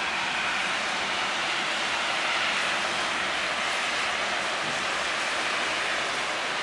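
Steady hiss of road traffic passing on a snowy, slushy street, an even wash of tyre noise with no single vehicle standing out.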